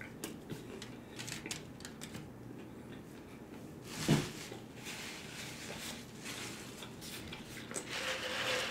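Close-up chewing of a bite of a chicken and lettuce wrap: soft wet mouth sounds and small crunchy clicks. About four seconds in, a single sharp knock as the wrap is set down on the foil-lined tray, and near the end a short rustling noise.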